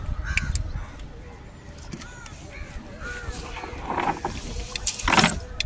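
Birds calling in short arched calls, with scattered clicks and a louder sharp knock about five seconds in.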